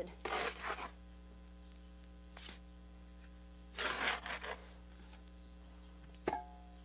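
Steel trowel scooping wet mortar off a mixing board and dropping it onto brick paving: a few short scrapes and slaps, with one sharp knock near the end. A steady low electrical hum lies underneath.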